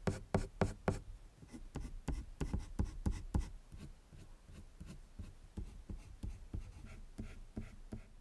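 Coloured pencil scratching across paper in short, quick strokes, about four a second at first, then less regular and softer after about four seconds.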